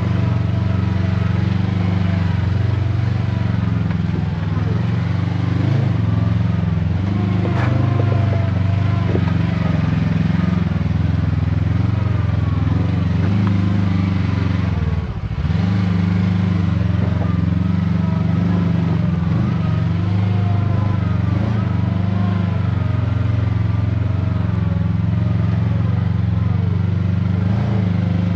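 Kawasaki Teryx KRX4 1000 side-by-side's parallel-twin engine running steadily as it drives up a rocky dirt trail, dipping briefly about halfway through.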